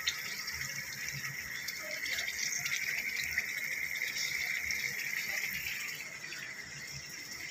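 Chicken pieces sizzling in hot oil in a frying pan as dairy cream is poured over them: a steady frying hiss that eases a little near the end.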